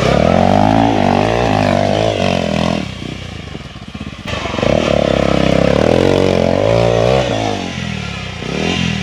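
Hero Xpulse 200 motorcycle's single-cylinder engine revving hard off-road, the revs rising and falling, with a quieter stretch about three to four seconds in.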